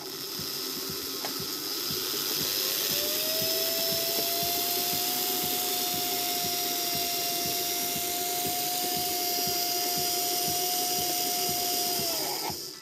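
Electric motor and gear train of a freshly overhauled Märklin H0 locomotive chassis running on rolling-road test rollers. A whine rises in pitch over the first few seconds as it speeds up, holds steady, then falls away near the end as it slows, over a fine regular ticking from the drive.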